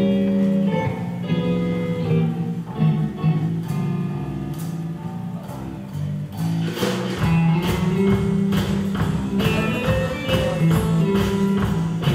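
Live rock band playing: electric guitar over bass and drums, with the band filling out louder and fuller a little past halfway.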